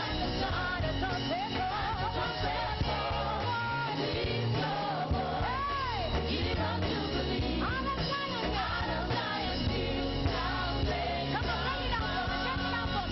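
Church praise-and-worship music: voices singing a melody over a band accompaniment with a steady bass.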